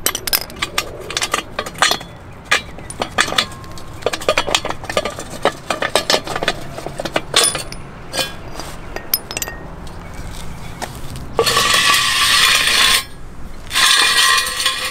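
Ratchet wrench clicking and loose metal parts clinking as the end bolt is taken off a fifth-wheel's hydraulic landing-gear leg. Near the end come two long metallic scrapes as the hydraulic cylinder slides out of the square steel leg tube.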